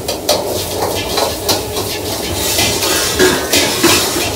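A metal ladle clanking and scraping against a wok as fried rice is stir-fried: many irregular sharp strikes over a steady low kitchen hum.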